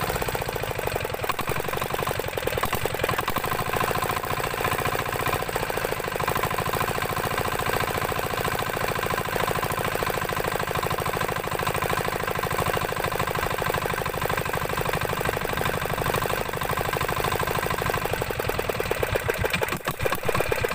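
Yanmar 12 HP single-cylinder diesel engine running steadily on test after an oil change, a fast, even beat of firing pulses. Near the end its beat slows and turns uneven.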